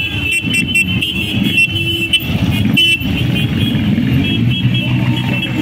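Several motorcycle engines running together as a line of classic and vintage motorcycles rides slowly past.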